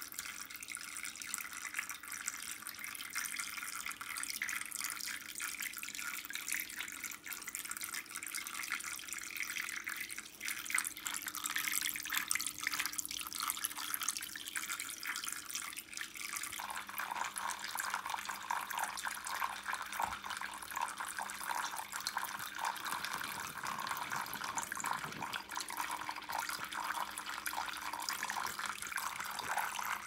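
Water trickling and splashing from the spouts of a small handmade tabletop fountain into its pebble-lined basin, a steady light splashing with a faint steady hum underneath.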